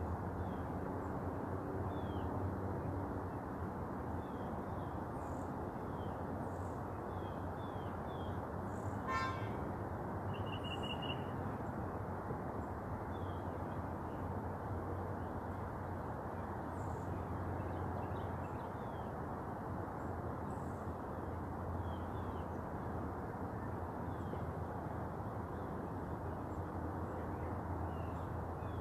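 Birds chirping in short, scattered calls over a steady low rumble. About nine seconds in there is a sharp click, followed about a second later by a brief high tone.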